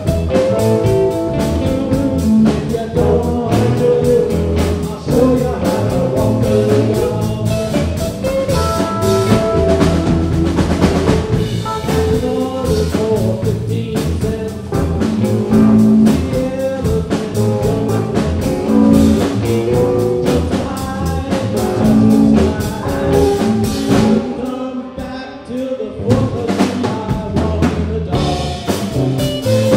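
Live blues-rock band playing: two electric guitars, electric bass and a drum kit. Near the end the band drops to a quieter moment for about two seconds, then comes back in full.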